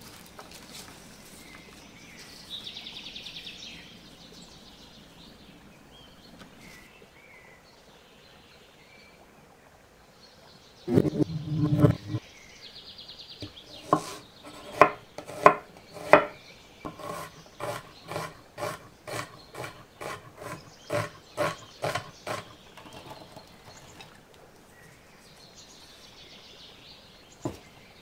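Knife chopping on a cutting board in a steady run of sharp strokes, about two a second, after a loud low thump. Birds chirp faintly near the start and end.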